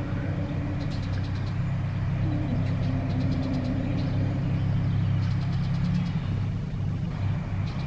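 Steady low engine hum, like an engine idling, with faint clusters of high ticking every couple of seconds.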